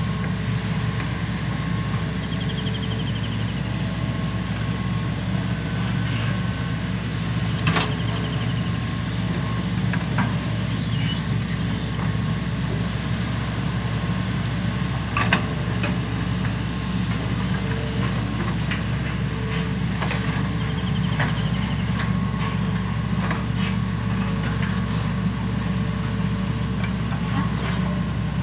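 Diesel engines of two hydraulic excavators, a Sumitomo SH120-3 long-reach and a Hitachi EX200-5, running steadily under digging load as a low drone. A few brief clanks from the boom and bucket work come through it.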